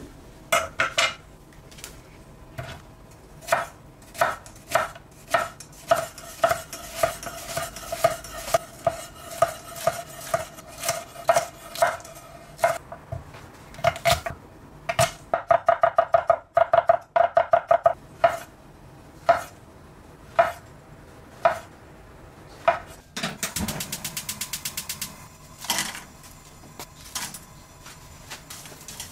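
Kitchen knife cutting on an end-grain wooden cutting board: separate chops with a short ringing note on each, then a fast run of chops about two thirds of the way through.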